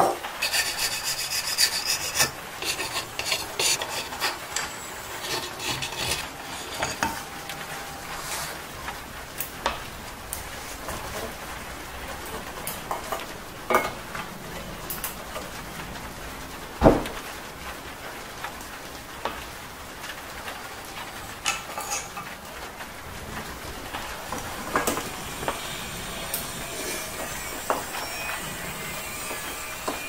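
Bicycle parts and tools being handled on a workbench: rubbing and scraping with scattered clicks and light knocks, and one sharp knock about 17 seconds in.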